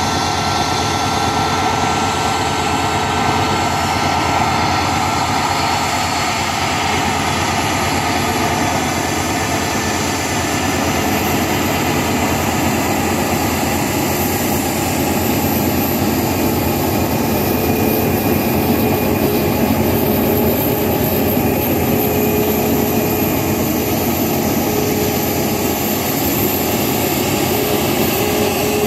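Boeing 737 MAX 8's CFM LEAP-1B turbofan engines running at taxi power: a steady jet whine and rumble. A high, thin whine comes in about a third of the way through as the airliner draws nearer.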